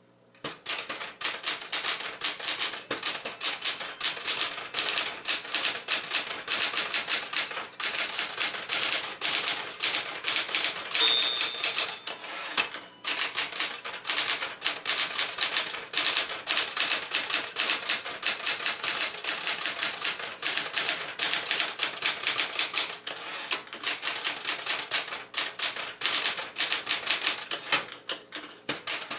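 Smith-Corona Sterling manual portable typewriter being typed on steadily: a fast, irregular run of key strikes. About eleven seconds in, the margin bell gives one short ring, and a moment later the typing pauses briefly.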